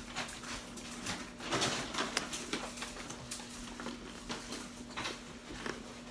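Chewing a mouthful of candy apple, the hard candy coating and green apple crunching in irregular crisp clicks and crackles, loudest about a second and a half in. A steady low hum runs underneath.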